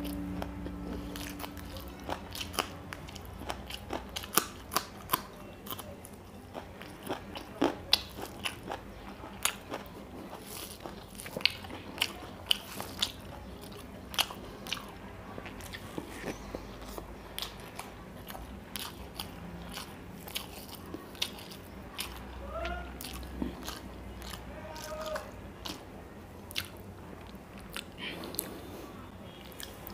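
Close-up eating: biting and chewing raw green chilli and handfuls of rice and curry, with irregular sharp wet mouth clicks and smacks, often several a second.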